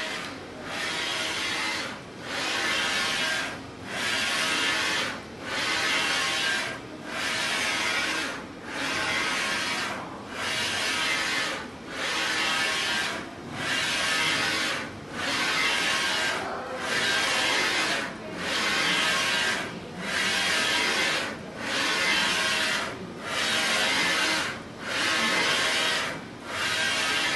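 Wide-format textile inkjet printer printing on fabric: the print-head carriage whirs across the cloth pass after pass, each sweep about a second and a half long, with a brief dip in the sound as it turns at each end.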